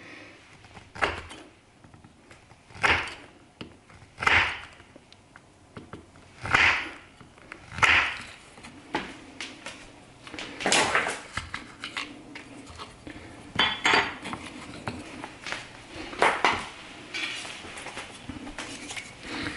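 CPM 15V steel knife making a series of hard-use test cuts, one short sharp stroke every second or two, about a dozen in all.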